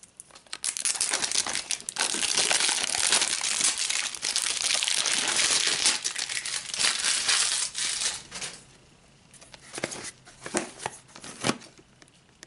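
Plastic shrink-wrap being peeled and torn off a Barbie Color Reveal doll tube, a dense crinkling and crackling for about eight seconds. After that come a few lighter crinkles and clicks as the plastic packaging is handled.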